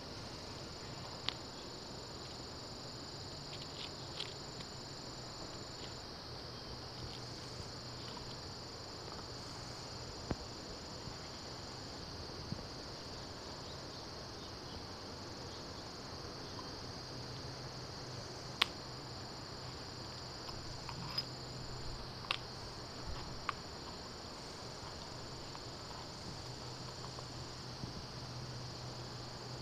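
Steady chorus of crickets trilling, over a faint low hum. A dozen or so short sharp clicks and scrapes come now and then, most of them in the second half, as a puppy mouths and tugs a rubber garden hose on concrete.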